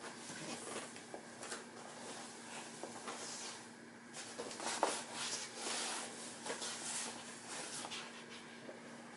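Rustling, shuffling and soft knocks of a person shifting his body on a folding exercise mat and lifting and placing his legs by hand, coming in scattered bursts.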